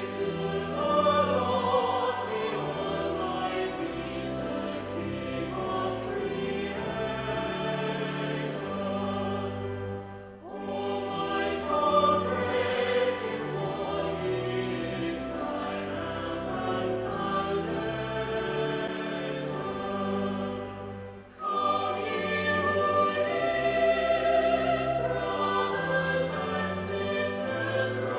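Choir singing a classical sacred piece with instrumental accompaniment, in sustained phrases with two short breaks, about ten and twenty-one seconds in.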